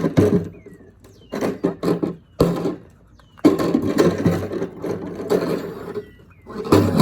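Loud, irregular banging and clattering of hard objects struck on the ground, with a longer stretch of rough scraping, rattling noise in the middle.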